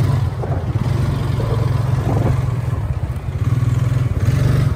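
Engine of a red four-wheeler ATV running steadily as it carries two riders, a low drone with a brief dip about four seconds in.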